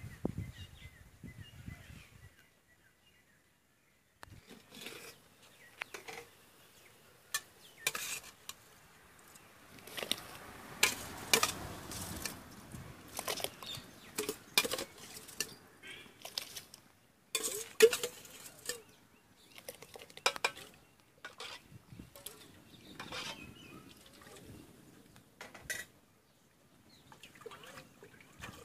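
A steel ladle and metal cooking pots clinking, knocking and scraping in scattered, irregular strokes, with a denser run of clatter about ten to thirteen seconds in.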